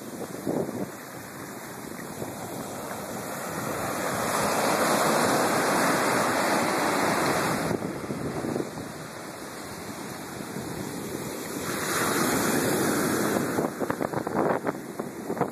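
Ocean surf on a sandy beach: waves breaking and washing up the shore, swelling loudest about four seconds in and again about twelve seconds in.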